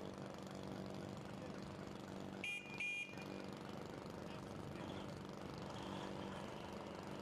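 A crawler bulldozer's diesel engine running steadily. About two and a half seconds in, two short high-pitched whistle toots sound about half a second apart.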